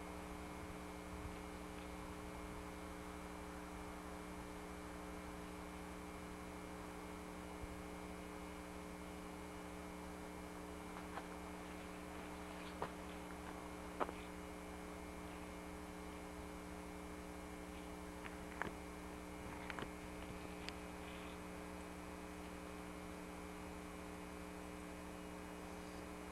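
Steady electrical hum with hiss on the recording, with a few faint clicks in the middle of the stretch.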